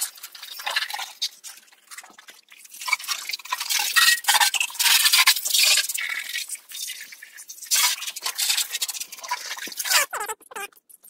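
A car being washed: irregular bursts of hissing water spray and scrubbing, starting and stopping every second or so.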